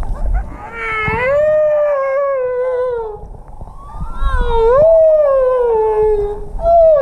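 Humpback whale calls: two long, drawn-out calls, each rising in pitch and then slowly sliding down, with a third starting near the end.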